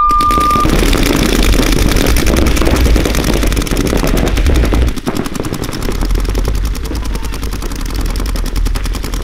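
Several paintball markers firing in rapid continuous streams, a fast dense ripple of shots. A short, steady, high electronic beep sounds at the very start.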